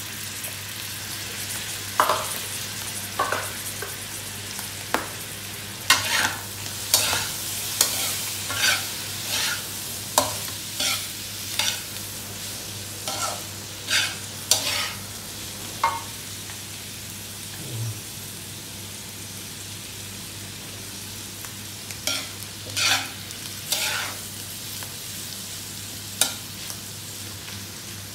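Metal spatula scraping and turning pork, mushrooms and sweet corn in a metal wok over a steady sizzle, in irregular strokes about once a second, with a few seconds' pause past the middle. The mixture is frying until the corn's moisture dries off.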